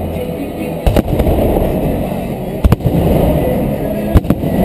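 Fireworks bursting overhead: three pairs of sharp bangs, about a second and a half apart, over the steady hubbub of a large outdoor crowd.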